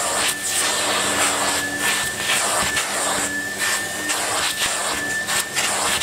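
Numatic tub vacuum cleaner running with a steady high whine, its hose nozzle drawn back and forth over a dusty cloth filter, each stroke swelling the rush of suction.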